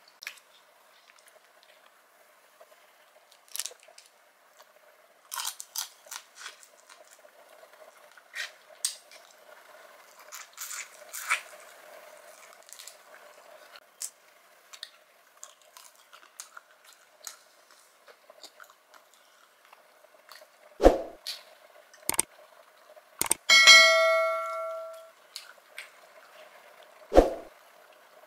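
Close-miked eating sounds: soft chewing and mouth clicks, then the crackle of shrimp shells being peeled by hand. Near the end come a few sharp knocks and one ringing clink that fades over about a second and a half.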